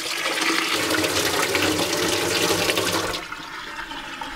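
Tap water pouring from a faucet into a saucepan of boiled chicken necks in a stainless-steel sink, cooling them. The rush of water cuts off about three seconds in, leaving quieter splashing as the pan is tipped to drain.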